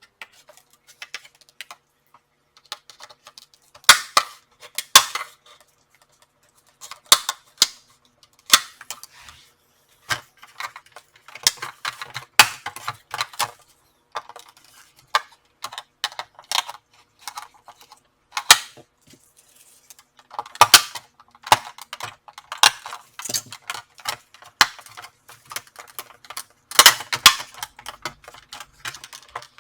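Irregular sharp clicks and snaps, in clusters, as the bottom cover of a Samsung NP-RC730 laptop is pried loose along its seam, its plastic clips releasing.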